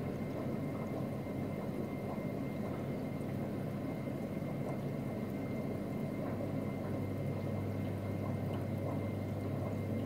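Steady running noise of aquarium equipment: water trickling and gurgling over a low, even pump hum.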